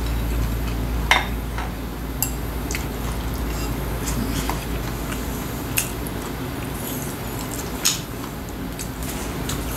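Eating at the table: chopsticks click sharply against the dishes four or five times, loudest about a second in and near the end, between soft squishing of a cabbage leaf being wrapped and chewing.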